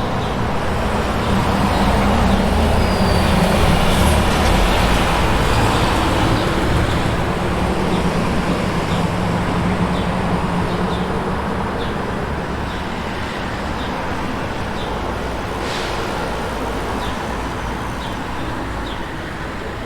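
City street traffic going by. A vehicle's engine hum swells to its loudest a few seconds in and slowly fades away, with faint short bird chirps repeating over it.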